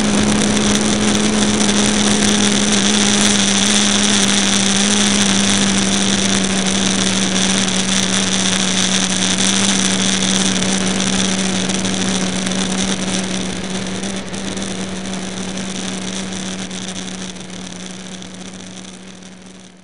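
Bixler RC plane's electric motor and pusher propeller running at a steady pitch, heard through the onboard camera's microphone as a constant hum and high whine with rushing air. It fades out over the last several seconds.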